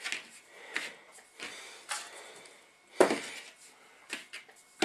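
Rolling pin rolling out pizza dough on a plastic mat: soft rubbing with scattered light knocks as the pin is set down and lifted, the loudest knock about three seconds in.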